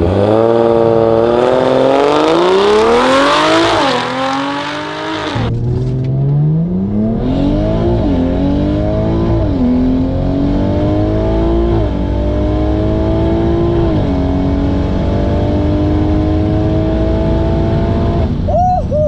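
Turbocharged BMW 340i (B58 3.0-litre inline-six with a big top-mount SpeedTech turbo on E85) at full throttle on a quarter-mile drag pass. It launches loud, heard from outside, then is heard inside the cabin as the engine pitch climbs through each gear and drops at each upshift several times. Near the end comes a long pull that cuts off suddenly. The driver felt the engine breaking up slightly on its first E85 port-injection tune.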